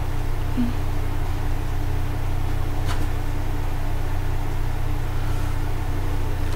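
Steady low hum with a fainter higher steady tone over it, and a faint click about three seconds in.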